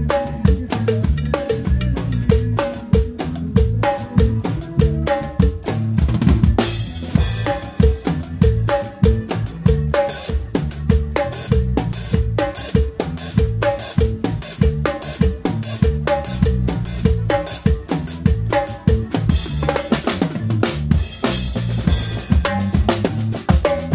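Drum kit played live in a fast, steady groove on hi-hat, snare and bass drum, with the band's pitched bass notes underneath. Cymbal crashes wash over the beat about six and a half seconds in and again around twenty seconds in.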